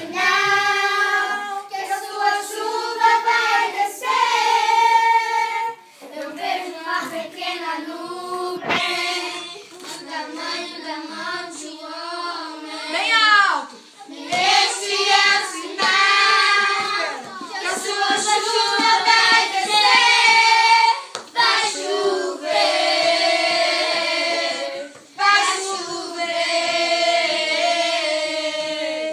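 A group of children singing together, holding long notes in phrases broken by short pauses, with hand percussion along with the song.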